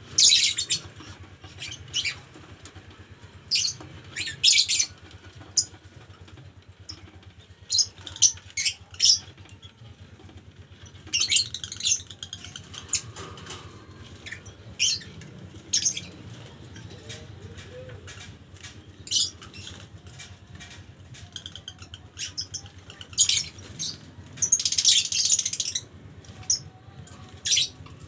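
Lovebirds giving short, high-pitched chirps and squawks at irregular intervals, with a longer run of calls near the end, over a faint low hum.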